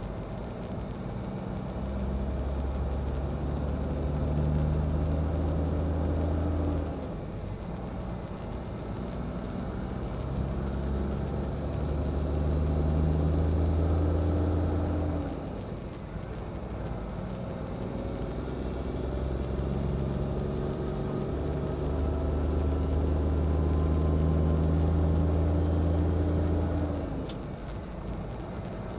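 Heavy diesel truck engine pulling through the gears: the revs climb slowly, then drop suddenly at each of three upshifts.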